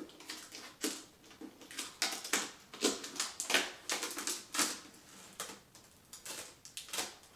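Protective plastic film being peeled off a new upright vacuum cleaner's body, crinkling and crackling in irregular bursts.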